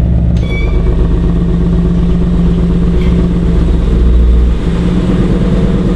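2018 Ford Mustang GT's 5.0-litre V8 idling steadily with its active exhaust set to quiet mode. A slight dip in level comes about four and a half seconds in.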